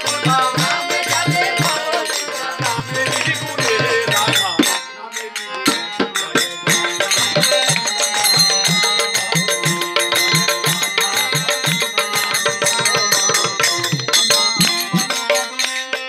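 Bengali devotional kirtan music: a harmonium holding steady tones, small hand cymbals jingling and a drum beating a regular rhythm, with a voice singing over it in the first few seconds. The music dips briefly about five seconds in, then the drum and cymbals carry on in an even beat.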